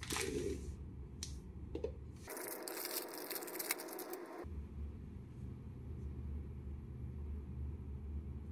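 Thin clear plastic wrapper crinkling and rustling as a small plastic figure piece is unwrapped and handled, with a few light clicks. The crinkling is loudest from about two to four and a half seconds in.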